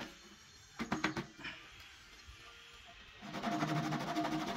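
A few light knocks as the piece is handled, then, about three seconds in, a hacksaw starts cutting through the turned coconut-wood piece to part it from the lathe: a steady rasping with a held ringing note.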